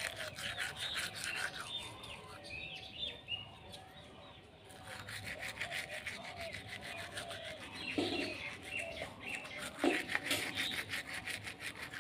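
Toothbrush scrubbing teeth in a rapid back-and-forth rhythm, with a lull about two to four and a half seconds in. Birds chirp in the background, and two brief louder sounds stand out about eight and ten seconds in.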